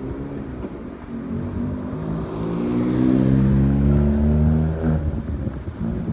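A car drives past close by. Its engine note swells to a peak about three to four and a half seconds in, then drops away sharply near five seconds.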